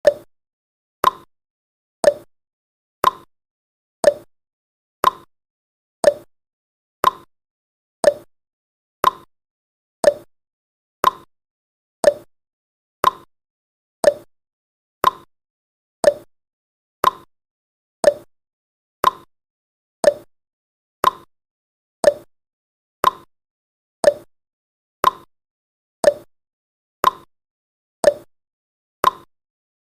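Countdown timer tick sound effect: one short, sharp tick every second, evenly spaced.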